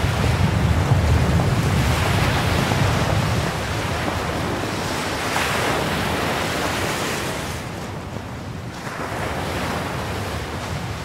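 Sea surf breaking and washing up a pebble beach: a steady wash of noise with a deep rumble in the first few seconds, easing off after about seven seconds.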